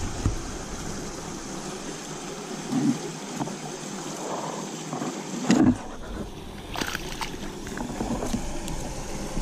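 Water gurgling and splashing as a hooked largemouth bass is brought in, with a louder short thump a little over halfway through.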